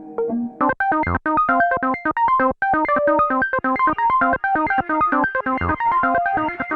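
Synthesizer music through the Endorphines Evil Pet granular pedal: a fast run of short, repeated pitched notes in a steady rhythm, turning fuller and brighter about half a second in.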